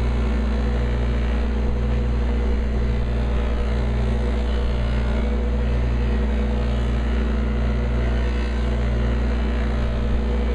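Bench buffer's electric motor running with a steady hum, its soft buffing wheel spinning at about 3,400 RPM while a wooden piece is held lightly against it for polishing.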